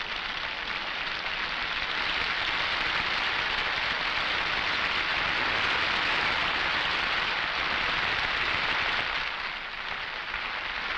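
Crowd of spectators applauding: a steady clatter of clapping that swells in at the start and eases off briefly near the end.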